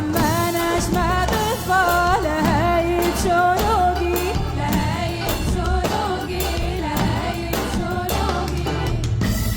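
A Tunisian song: a solo voice sings a melody full of sliding, ornamented notes over an accompaniment with a steady low bass and percussion.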